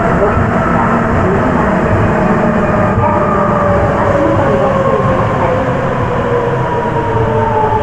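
Sapporo Municipal Subway 9000 series train running, heard from inside the car: the whine of its Hitachi IGBT VVVF inverter and traction motors slowly falls in pitch as the train slows, over a steady running rumble.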